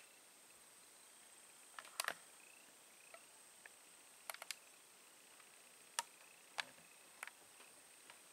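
Near silence with a faint steady high-pitched hiss, broken by scattered sharp clicks and ticks, the loudest about two seconds in and again about six seconds in.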